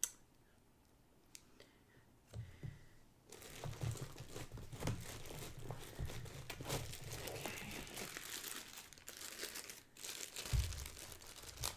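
Packaging crinkling and rustling as it is handled, starting about three seconds in after a quiet stretch, with a low thump near the end.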